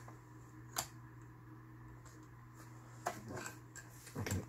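Hands threading a household sewing machine: a sharp click a little under a second in, then a few light clicks and taps near the end, over a steady low hum.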